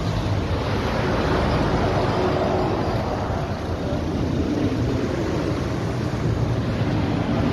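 Cars driving slowly past at close range, their engines and tyres heard through steady wind noise on the microphone.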